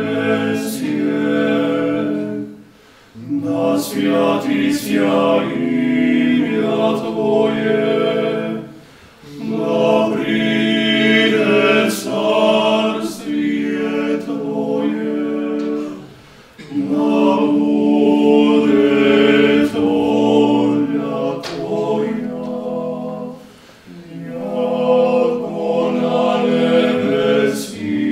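Male vocal quartet singing a cappella, in phrases of about six seconds separated by short breath pauses.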